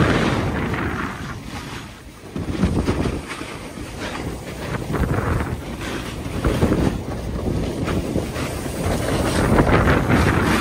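Wind buffeting the microphone of a camera moving fast down a ski slope, mixed with the hiss of edges scraping over packed snow, surging louder and softer every couple of seconds.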